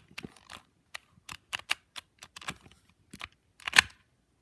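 Plastic clicks and clacks of a Rubik's 2x2 cube being turned by hand through a move sequence, irregular, with one louder clack near the end.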